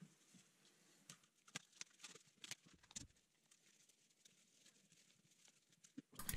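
Near silence with a few faint clicks and crackles of tape being pulled off a roll and pressed onto a cardboard puck, about one to three seconds in.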